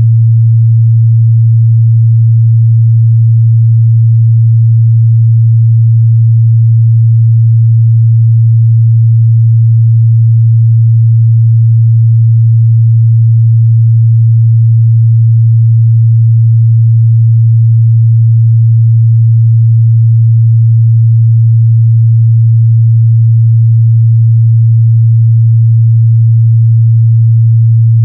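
Continuous 114 Hz sine-wave test tone: a pure, steady low hum at one pitch, loud and unchanging.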